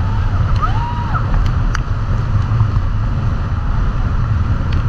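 Loud, steady wind buffeting the microphone and rushing water and spray as an inflatable banana boat is towed at speed across the sea.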